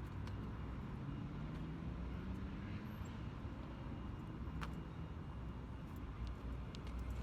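Bus engine running with a steady low rumble, with a few light clicks and rattles.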